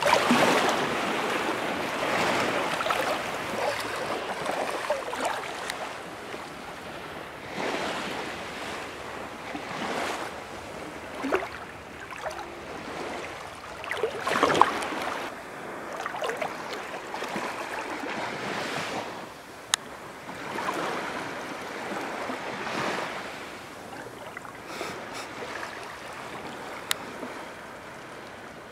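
Sea waves washing onto the shore, swelling and falling away every few seconds, with a couple of short sharp clicks in the second half.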